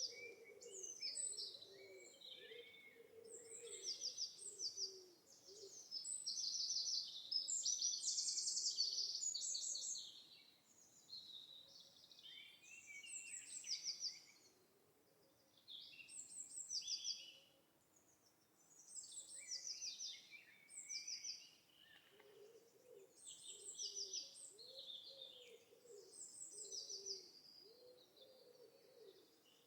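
Birds singing: many overlapping chirping and trilling phrases throughout. Low cooing calls join in at the start and again about two-thirds of the way through.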